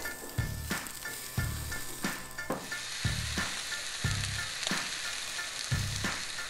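Thick tomahawk steak sizzling on the hot grate of a gas grill, a continuous hiss of searing fat and juices. A background music track with a steady low beat plays under it.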